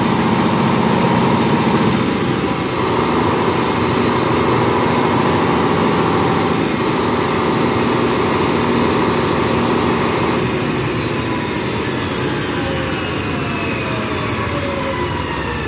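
Freshly overhauled Caterpillar 3412 V12 diesel engine running steadily with its radiator fan turning. About ten seconds in it is throttled back, and its note slides down as it slows toward idle.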